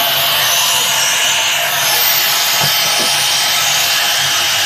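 Zebronics home theater in FM mode, playing loud, steady FM static hiss through its speakers. The hiss shows that the amplifier is passing sound again after its missing +9 V supply was restored.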